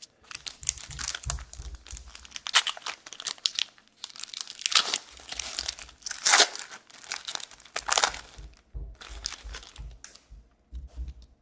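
A trading card pack's wrapper being torn open and crinkled by hand: a run of irregular crisp crackling and rustling.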